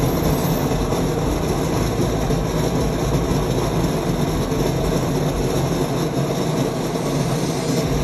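Coffai fully automatic coffee machine's built-in grinder grinding beans for a latte: a loud, steady grinding noise.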